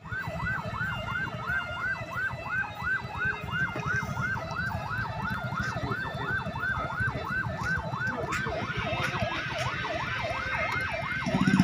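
Motorcade escort siren sounding a fast yelp, its pitch sweeping up and down about three times a second, with a low rumble beneath.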